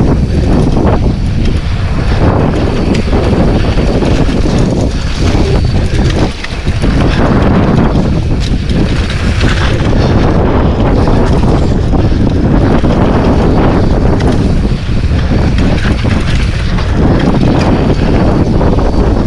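Wind buffeting the microphone of a camera on a mountain bike descending fast, with the bike rattling and knocking over rough dirt trail.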